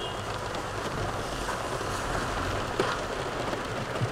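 Steady hiss filling the car cabin, with a light click of a metal spoon against a plastic takeaway container about three seconds in and another near the end.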